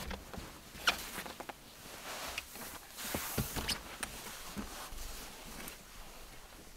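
Rustling of tent fabric and clothing with scattered light clicks and knocks as someone climbs out of a rooftop tent onto its ladder, with a short hissing rustle about three seconds in.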